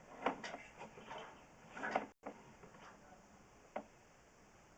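A few scattered, irregular clicks and knocks, with one sharp click near the end.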